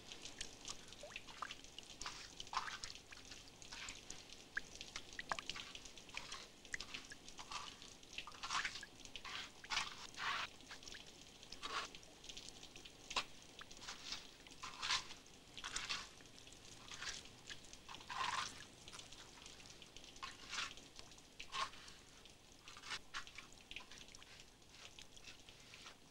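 Water dripping irregularly into a bucket of water, one or two drips a second.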